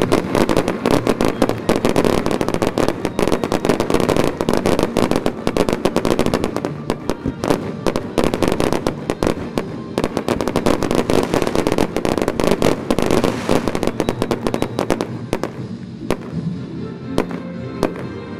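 Aerial fireworks going off in dense, rapid crackling and popping from crackle-star bursts, thinning out over the last few seconds. Music plays underneath.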